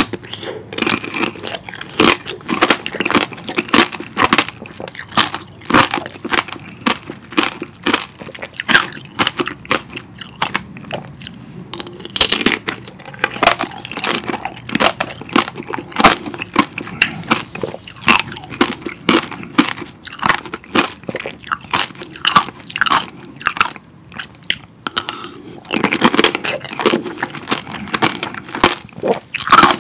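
Close-miked biting and chewing of strawberry tanghulu: the hardened candied-sugar shell cracking and crunching between the teeth in a dense run of sharp crunches, easing off briefly and then crunching hard again near the end.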